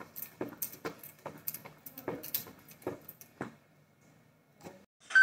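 Quick footfalls of running on the spot, trainers striking a tiled floor about two times a second, stopping about three and a half seconds in.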